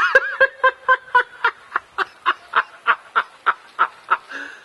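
A person laughing in a high-pitched, rhythmic 'ha-ha-ha', a long run of even pulses about three or four a second that trails off near the end.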